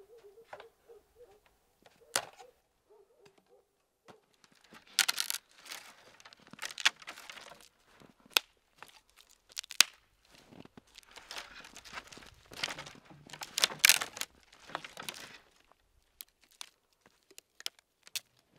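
Irregular rustling and crunching with scattered knocks and clicks, as of someone moving about and handling things, loudest about five seconds in and again near fourteen seconds. A faint wavering tone is heard in the first few seconds.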